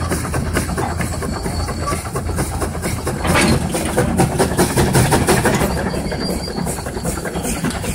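25 hp Russell steam traction engine working under load on a tractor-pull sled, its exhaust beating in a quick, steady chuff. It gets somewhat louder from about three seconds in.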